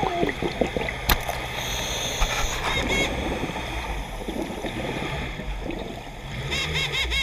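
Underwater sound through a dive camera's housing: a scuba diver's regulator breathing, with exhaled bubbles rushing and gurgling out. A short run of quick high chirps comes near the end.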